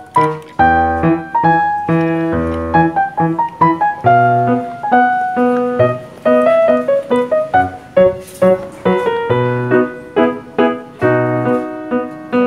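Background piano music: a melody of quick struck notes over low bass notes.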